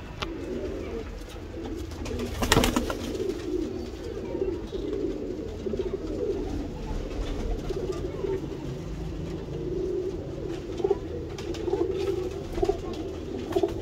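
Domestic pigeons cooing continuously in a low, burbling chorus, with a brief clatter about two and a half seconds in.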